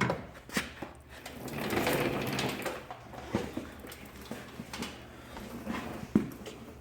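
Drawers of a Milwaukee 46-inch steel tool box sliding on their runners, with tools and fittings rattling inside, then several sharp clicks and knocks, the loudest about six seconds in.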